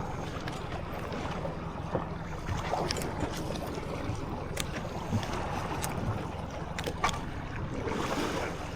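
A boat's outboard motor running steadily as a low hum, with wind on the microphone and scattered clicks and knocks from the boat.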